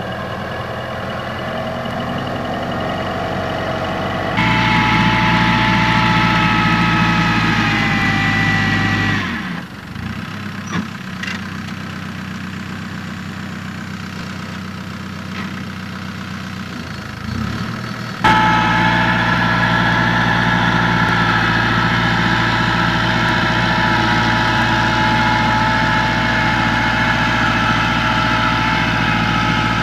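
Schiltrac mountain transporter's engine running steadily as it drives across a steep slope. The level and pitch change abruptly about four, nine and eighteen seconds in, with a quieter stretch between nine and eighteen seconds.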